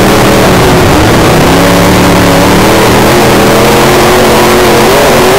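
Super stock dirt-track race car engine running hard under racing load, heard from onboard the car, its pitch rising and falling slightly as the throttle comes on and off. The sound is very loud and close to clipping.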